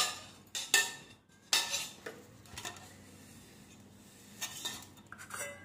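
Stainless steel kitchenware clinking against a steel mixer-grinder jar as curd is put in. Three sharp clinks come in the first two seconds, about a second apart, and a few lighter taps come near the end.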